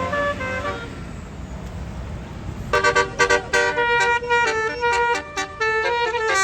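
Tour bus's Basuri telolet horn playing a quick melody of loud tooting notes that jump between pitches, starting about three seconds in. Before that, a few notes fade out over the rumble of the bus engine.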